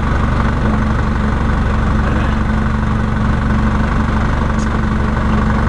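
A truck's engine running steadily, a low even drone with no change in speed.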